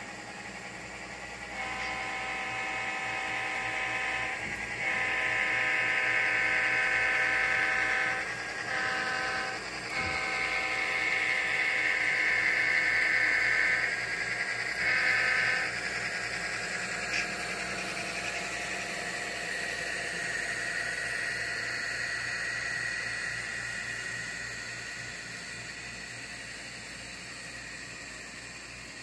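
Model diesel locomotives and freight cars running past on the track. In the first half a horn-like chord of steady tones sounds in several long blasts and one short one, cutting on and off sharply. After that comes the steady whir of motors and wheels, which swells and slowly fades as the cars roll by.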